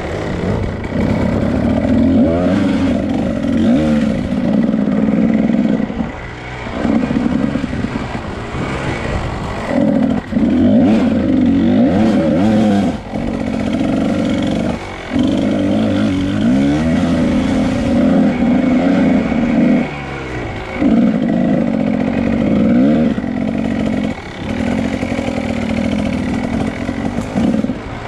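2001 Kawasaki KDX 220 two-stroke single-cylinder dirt bike engine being ridden on a trail. The throttle is worked on and off over and over, so the engine note climbs and drops back, with short lulls every few seconds.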